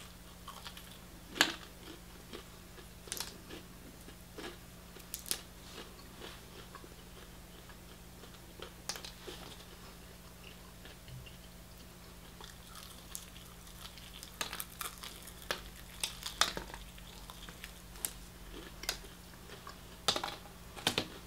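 A person biting and chewing crispy-coated fried chicken wing: scattered crunches and clicks, the loudest about a second and a half in and again around sixteen seconds, with a quick run of them near the end.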